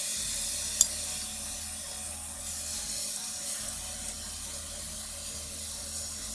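Yuan-ji marinade (mirin, sake and soy) being brushed onto skewered kinmedai fillets over a charcoal grill, hissing and sizzling on the hot fish. The basting comes partway through grilling and cools the surface so it chars less. One sharp click sounds about a second in, and the hiss is stronger in the first couple of seconds.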